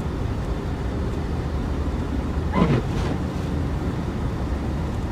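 Steady low rumble inside a four-wheel-drive vehicle's cabin as it drives through deep unplowed snow: engine, tyre and wind noise. About two and a half seconds in, a brief sound slides down in pitch.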